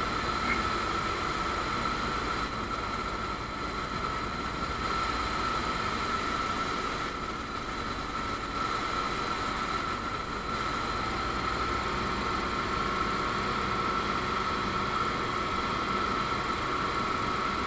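Ultralight aircraft's engine and propeller running steadily in flight, heard from inside the cockpit: an even drone with a steady high whine.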